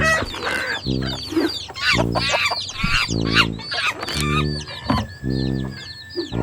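Chickens clucking busily, with a low, flat-pitched note sounding in short pulses about once a second.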